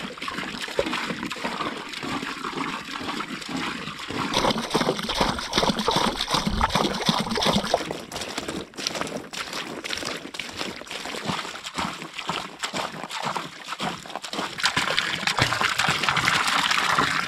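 Water pouring in a stream from a plastic jug into a shallow pool on a pond liner, splashing as the pond fills.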